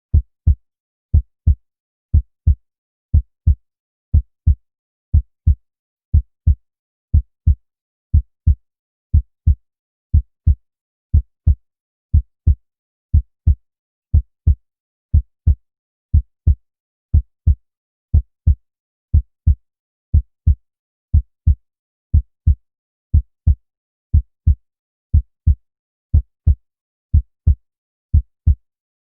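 Recorded heart sounds: a steady lub-dub, with paired short low thumps about once a second.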